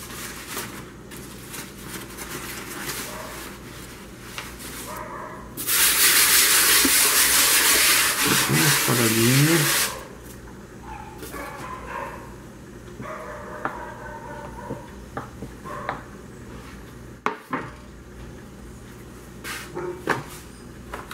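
Faint clicks and taps of pizza dough being handled on a wooden board and eased into a metal pan. About six seconds in, a loud, steady hiss of unclear source runs for about four seconds, with a brief whine near its end.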